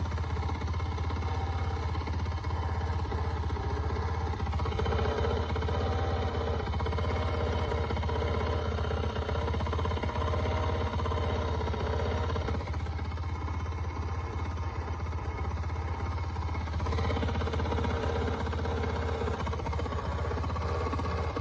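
Honda Magna 50's small single-cylinder four-stroke engine idling steadily, with a rubbing, scraping noise that comes in while the clutch lever is squeezed: once from about four seconds in until about twelve seconds, and again from about seventeen seconds in. The noise points to a misadjusted clutch on the engine side.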